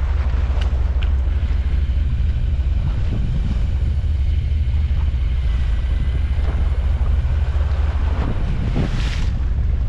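Steady low rumble of wind buffeting the microphone aboard a sea-fishing boat, with the boat's engine running beneath it.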